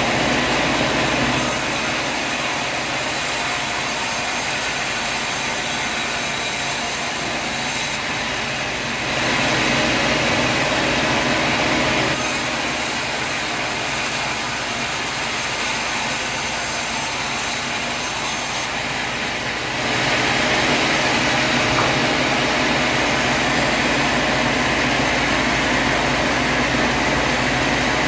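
Sawmill machinery running, a steady loud mechanical noise that shifts abruptly in level and tone several times.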